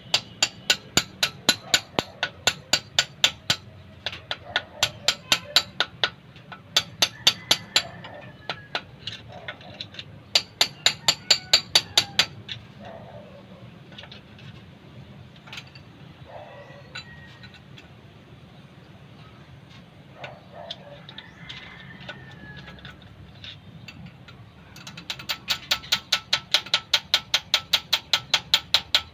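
Socket ratchet wrench clicking in quick, even runs of four to six clicks a second as a bolt on a 4M40 diesel's timing gears is worked. There are several short runs, a long pause with only a few scattered metal clinks, then a steady run again near the end.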